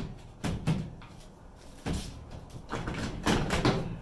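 A washing machine's top panel being slid and knocked into place on the cabinet: a series of sharp knocks with scraping between them, the densest run in the last second or so.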